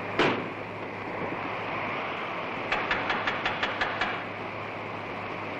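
Wind blowing steadily, with a loose wooden window shutter banging once near the start, then a quick run of about eight rattling knocks a little under three seconds in.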